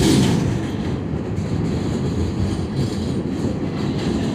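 R46 subway car running at speed, heard from inside the car: a steady rumble and clatter of steel wheels on the rails. A louder rush comes right at the start and eases off within about half a second.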